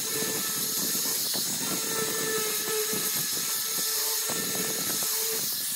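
Angle grinder fitted with a sanding drum running at speed and sanding the curved face of a carved wooden block: a steady hiss of abrasive on wood over the motor's whine.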